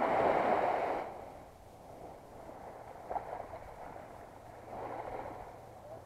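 Shallow sea water splashing, loudest in about the first second, then small waves lapping quietly with a few faint splashes.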